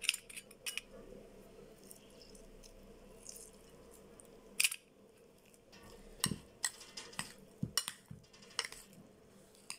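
Steel spoon clinking and scraping against a ceramic bowl while stirring wet marinated paneer cubes and mushrooms: scattered clinks, the loudest about halfway through and a run of lighter ones near the end.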